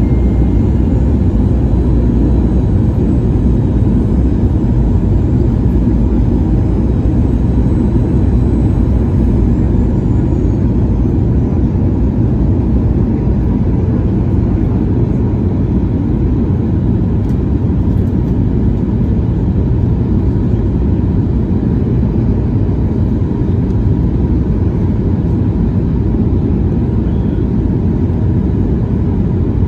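Boeing 737-800 cabin noise in flight, heard from a window seat beside the wing: a steady, deep rumble of the CFM56-7B engine and airflow. A faint high whine drops slightly in pitch and fades about ten seconds in.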